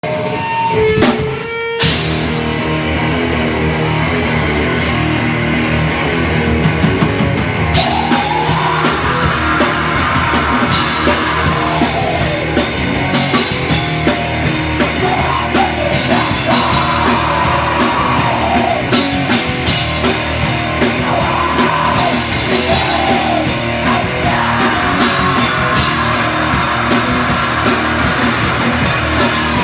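Black metal band playing live and loud: distorted electric guitar over a Tama drum kit. The sound cuts out briefly in the first two seconds, and the drums and cymbals come in hard from about eight seconds in.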